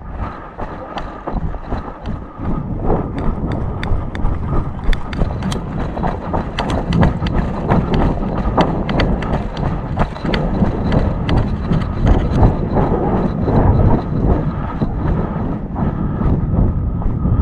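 Footsteps crunching through brush and leaves with clothing and gear rustling, as a player moves quickly on foot, with irregular snaps and heavy wind buffeting on the microphone.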